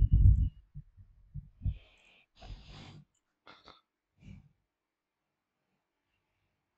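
Low thumps and rustles close to a headset microphone, loudest at the very start, then a few short clicks; the sounds stop about four and a half seconds in.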